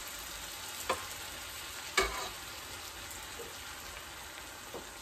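Vegetables and ketchup sizzling in a frying pan as mushroom broth is ladled in, with a metal ladle knocking against the pan about a second in and again, louder, at two seconds.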